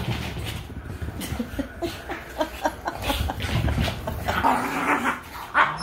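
Puppies playing together, giving a run of short yips and whimpers over the scuffle of their bodies on the couch.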